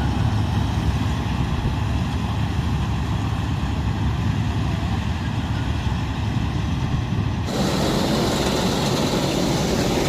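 Engine of a harvesting machine running steadily with a low hum. Near the end the sound changes suddenly to a louder, hissier mechanical din.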